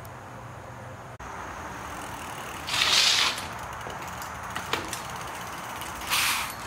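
Bicycle rear brake being tested while riding on concrete: two short hissing bursts from the braking rear wheel about three seconds apart, the first the louder, with a few faint clicks between them.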